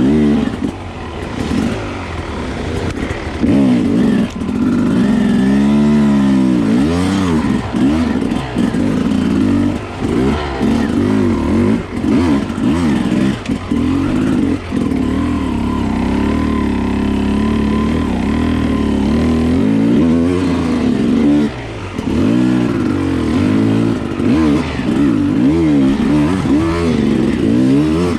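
Dirt bike engine heard from onboard, revving up and down over and over as the rider works the throttle along the trail, with a steadier stretch of held throttle midway.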